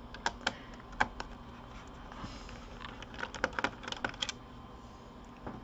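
Small, sharp clicks and taps from hands working on a laptop's plastic case and screws, a few spaced out at first, then a quicker run of clicks in the middle.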